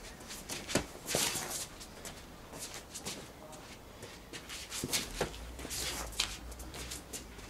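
Footwork scuffing and shuffling on stone paving, with swishes of a short polypropylene bat being swung through a striking drill: a string of short, sharp sounds a second or so apart, with a longer one about a second in.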